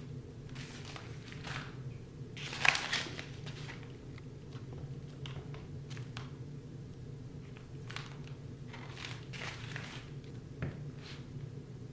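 Packing materials being handled: a string of short rustles and crinkles of paper or plastic packaging, the loudest about two and a half seconds in, over a steady low room hum.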